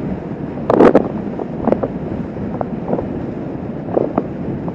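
Wind rushing over the microphone of a Kawasaki Vulcan S 650 riding at highway speed, with the bike's parallel-twin engine running steadily beneath it. A few short thumps cut through the rush; the loudest comes about a second in.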